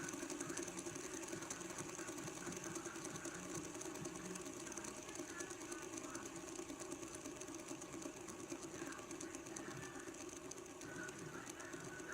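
LED light-up fidget spinner spinning on a tabletop, its bearing giving a steady, fast rattling whir against the table.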